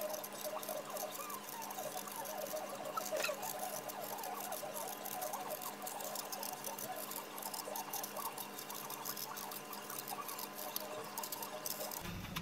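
A small knife paring the skin off a fresh apple, a continuous run of fine, crisp scraping ticks as the blade cuts through the crisp flesh under the peel.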